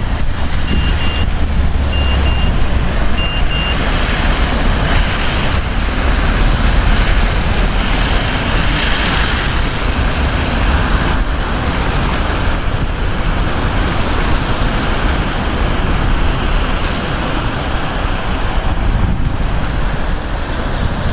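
Floodwater rushing, a loud steady noise with a heavy low rumble.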